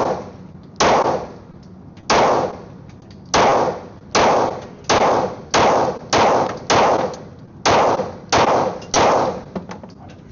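Glock 23 Gen 3 pistol in .40 S&W firing a string of about eleven shots, each a sharp report with a short echoing decay, at an irregular steady pace of roughly one shot a second, a little quicker in the middle of the string.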